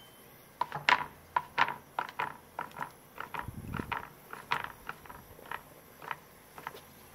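A Chinese cleaver chopping through rolled tofu skin onto a plastic cutting board, a steady run of short knocks about two to three a second as it is cut into wide strips.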